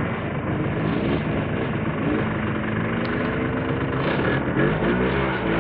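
Snowmobile engine running, its pitch rising and falling several times as the throttle is opened and eased off.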